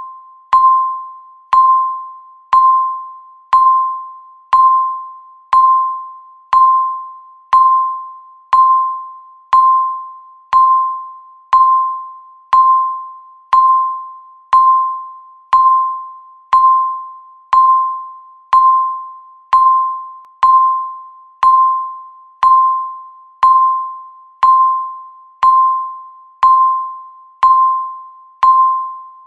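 Digital countdown timer beeping once a second: a short, clear electronic chime that fades quickly after each beep, at an even steady pace.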